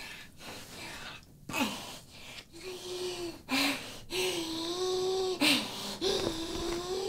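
A performer's exaggerated vocal noises: a run of breathy gasps and wheezy, hissing exhalations, several drawn out with a held low moaning tone.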